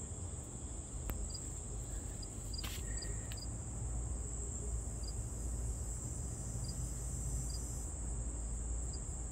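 Insect chorus in summer vegetation: a steady high-pitched trill, with a softer chirp repeating about once a second, over a low rumble and a few faint clicks.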